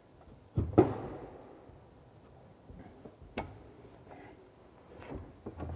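Sharp clicks and knocks of a nut and the basin's fixing bolt being handled under a wall-hung ceramic wash basin: a loud pair of knocks under a second in, then single clicks about three and a half and five seconds in.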